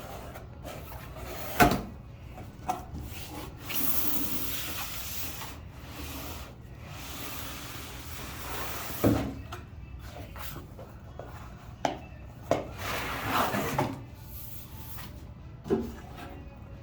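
Cardboard packaging being opened and handled: long sliding, scraping rubs of cardboard and plastic, with a few sharp knocks, the loudest about a second and a half in and about nine seconds in.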